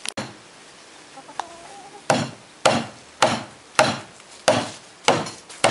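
Repeated sharp knocks on the plastic hen-house panels as they are worked into place, starting about two seconds in and coming about twice a second.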